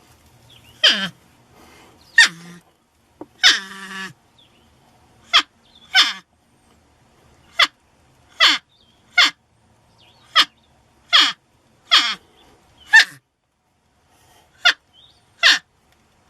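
Porcupine calling in a series of short, high squeals, each sliding down in pitch, about one a second at uneven intervals; a few near the start are longer and more tonal.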